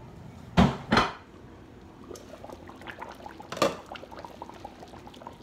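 Metal cookware clanking twice, loudly, about half a second apart, as the pot of roast is opened. Then the roast simmers with faint bubbling and crackling, with another, lighter clank about three and a half seconds in.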